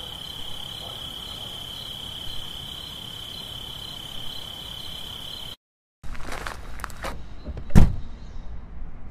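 A steady high-pitched insect buzz that stops suddenly about five and a half seconds in. After a short gap come irregular clicks and knocks from zip-line harness and clip gear being handled, the loudest a sharp knock near the end.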